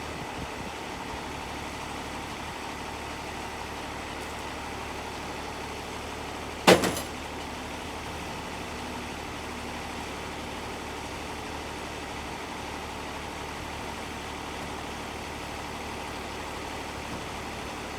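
An engine idling steadily, with one loud sharp knock about seven seconds in.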